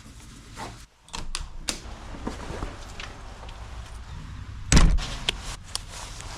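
Scattered knocks and clicks over a low rumble, with one heavy thud nearly five seconds in.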